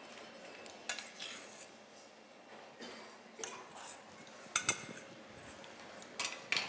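Metal spoon clinking and scraping against a small steel saucepan and a ceramic plate as a thick cheese cream is spooned out: a handful of light, separate clinks, two in quick succession about four and a half seconds in.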